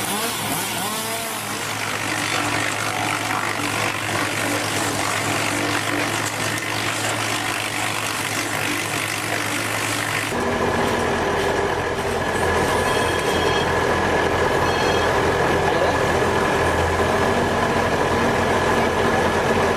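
Heavy machine engines running steadily. About ten seconds in the sound changes abruptly to another machine, with a steady high-pitched whine over the low engine note.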